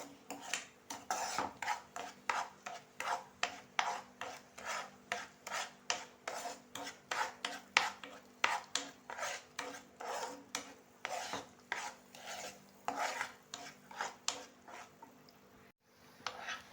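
A spatula scraping round a pan as it stirs thick date halwa, in quick regular strokes, about three a second. The strokes break off briefly near the end.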